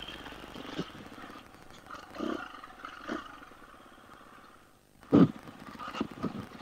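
Husqvarna FE 350 four-stroke single-cylinder dirt bike engine at low speed, given a few short throttle blips while picking through rocks. The loudest blip comes about five seconds in, right after the engine note dies away almost to nothing.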